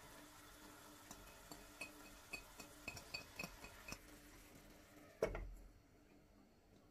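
A run of light glassy clinks, then a glass pan lid set down on the frying pan with one loud clank about five seconds in.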